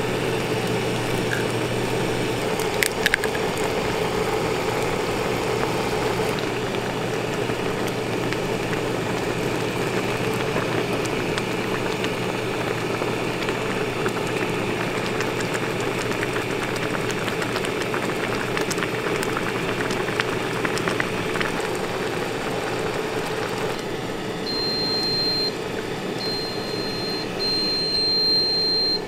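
Automatic ramen cooker running with a steady hum while broth boils in a paper bowl, with a couple of light clicks about three seconds in. Near the end the machine gives high electronic beeps in short repeated pulses.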